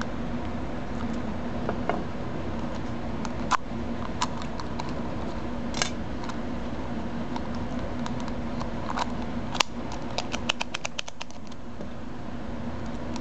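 Small metallic clicks and ticks of a lock pick working the pins of a Master Lock cylinder, over a steady low hum. The clicks come singly at first, then in a quick run of about ten a little past the middle.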